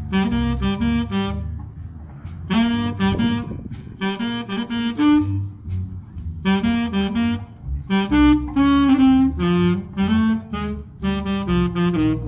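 Live big band playing jazz, led by the saxophones with brass, in short phrases broken by brief gaps, with low bass notes underneath.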